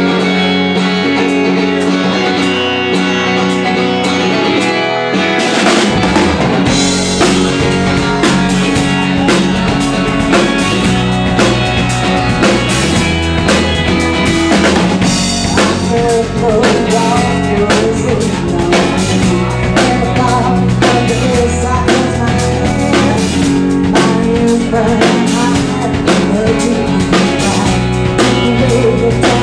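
Live rock band playing: sustained held chords open, then the drum kit and bass guitar come in about five and a half seconds in and carry a steady beat under guitar and keyboard.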